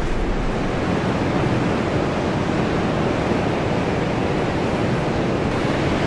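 Steady rushing of a strong storm wind, heard from inside a tent, with no distinct events.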